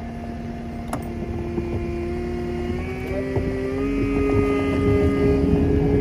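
Pickup truck engine revving up, its pitch climbing slowly and growing louder toward the end, as its tires spin in deep snow while it is pulled free with a tow chain.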